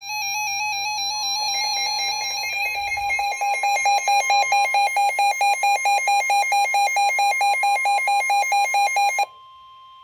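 Midland weather alert radio sounding its warning alarm: a loud, rapidly pulsing electronic beep with a steady tone underneath. It cuts off abruptly near the end. The alarm signals a newly received severe thunderstorm warning.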